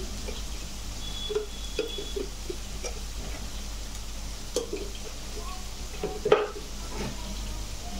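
A spoon knocking and scraping against a nonstick frying pan as Schezwan chutney is spooned into frying onion-tomato gravy, over a low sizzle. The sharpest knock comes about six seconds in.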